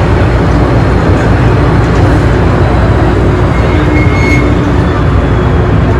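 Inside an MTR M-Train passenger car running on the Island Line: a loud, steady rumble and rush of wheels on rail and running gear.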